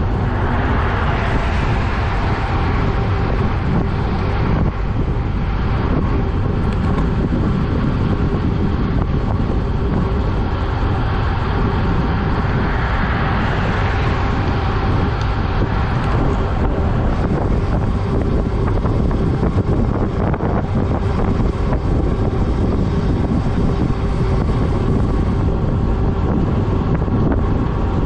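Wind rushing over the microphone of a camera on a bicycle descending at 24 to 30 mph, a steady, loud noise mixed with road noise. A car goes by about halfway through.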